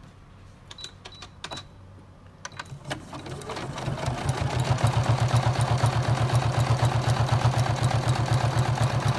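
A few light clicks, then a domestic sewing machine speeds up about three seconds in and runs steadily, sewing a zigzag stitch through several layers of denim with a fast, even rhythm.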